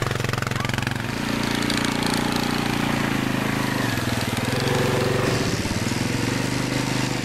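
Quad bike (ATV) engine running as it is ridden, its pitch rising and falling.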